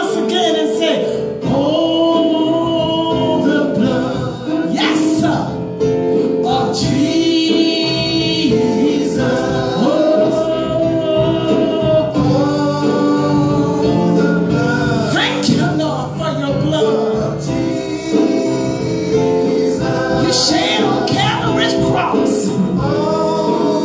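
Gospel singing: several voices in harmony, holding long notes and moving together.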